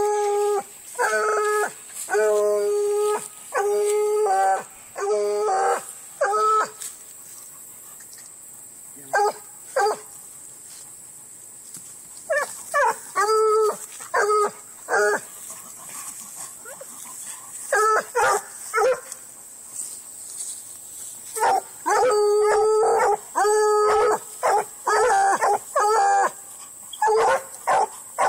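Bluetick coonhound baying: a run of short, level-pitched bays in several bouts, with pauses of a few seconds between them.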